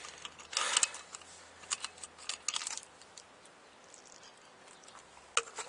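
Light clicks and handling noises from a drink can being opened and lifted to drink, with a short hiss about half a second in.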